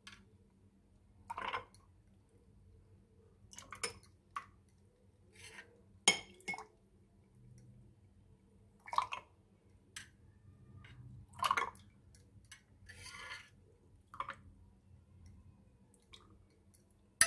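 Steel spoon scraping and clinking against a bowl and drinking glasses as spoonfuls of thick fennel sharbat mixture are poured over ice cubes, with soft wet drips. Scattered light clinks a second or two apart.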